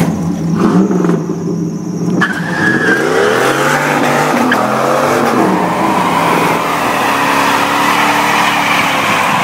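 Chevrolet Camaro engine revving hard while its rear tyres spin and squeal in a burnout, the engine pitch rising and falling as the throttle is worked. Later a pickup truck's engine and spinning tyres carry on the same burnout sound.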